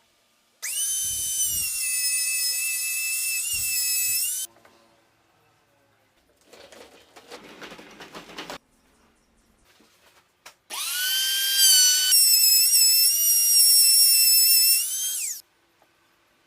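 A small electric power tool's motor whines at high pitch twice, about four seconds each time, spinning up at the start of each run and winding down at the end. Between the two runs there are about two seconds of quieter rough scraping noise.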